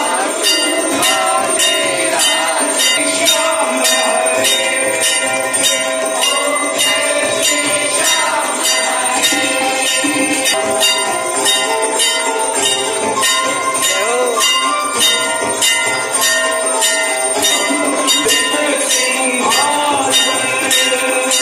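Temple bells rung for the aarti in a steady rhythm of about two strokes a second, their ringing tones carrying over continuously.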